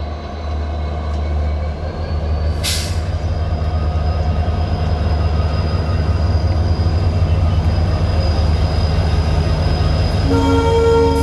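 A WDP-4D diesel locomotive's EMD 16-cylinder two-stroke engine running with a deep, steady rumble that grows louder as the train comes in, with a brief hiss about two and a half seconds in. Near the end the locomotive sounds its horn in a short blast of about a second.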